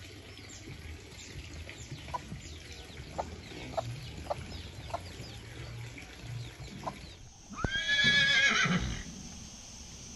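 Chicks peeping in a quick series of thin, falling peeps, with a few short clucks from the mother hen. About seven and a half seconds in, a horse gives one loud whinny lasting over a second.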